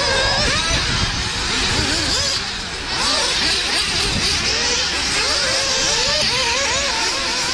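Several nitro-powered RC off-road buggies' glow-plug engines racing, their high-pitched notes repeatedly rising and falling as they accelerate and lift off, overlapping one another, with a low rumble beneath.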